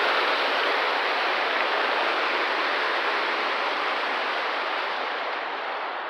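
Water rushing steadily down the wooden flume beside a mill waterwheel and splashing out at its foot, gradually fading over the last couple of seconds.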